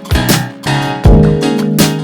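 Background music: guitar with strummed chords over a steady beat.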